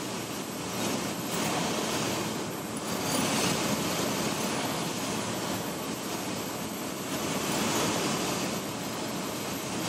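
Cessna 172's engine and propeller running, with airflow noise, heard inside the cockpit during a landing approach. The noise is steady and swells slightly a few times.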